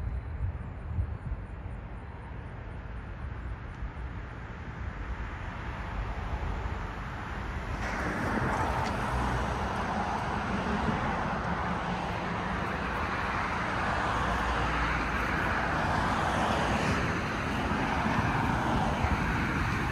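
Road traffic noise: the steady rush of passing cars, which grows louder and fuller about eight seconds in and stays up, over a low rumble.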